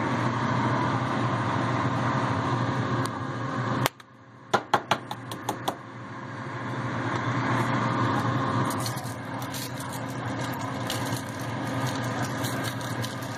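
Seasoning shaker shaken over a foil-lined tray of potato wedges, a string of sharp clicks and rattles, with a second run near the end. Under it runs a steady mechanical hum that cuts out suddenly about four seconds in and comes back gradually.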